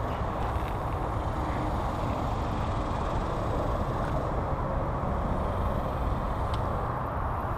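Steady drone of road traffic crossing a highway overpass.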